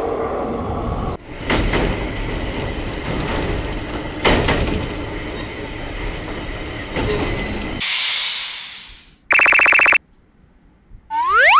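Train running on the rails, a steady loud rumble and rattle for about eight seconds that ends in a burst of hiss fading away. Then comes a short buzzy electronic tone and, near the end, a rising cartoon boing sound effect.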